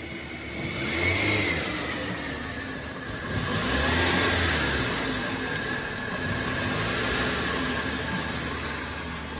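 A car running, its sound swelling twice, with a steady high-pitched squeal held over it.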